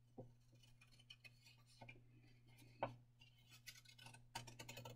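Scissors snipping a decal sheet: a few faint, sharp snips with light paper rustle, the loudest about three seconds in and several quick ones near the end, over a steady low electrical hum.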